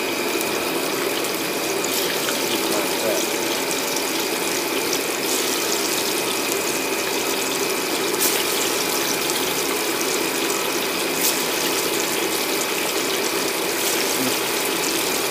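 Steady whooshing noise of a working street-food kitchen, with a faint high whine held throughout and a few light clicks.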